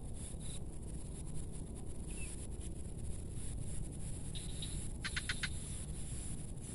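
Outdoor ambience by a small ditch: a steady low rumble with faint scattered clicks. Just after five seconds in, a small bird gives a quick run of about five high chirps.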